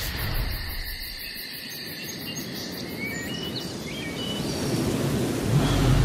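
Nature-ambience intro to a tropical house track: steady, evenly pulsing insect chirring over a haze of noise, with a few short bird-like whistles midway. A deep bass comes in near the end and the sound grows louder.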